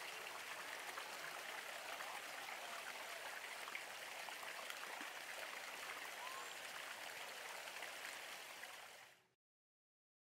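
Fountain jets spraying and splashing, a steady rush of falling water that fades out about nine seconds in.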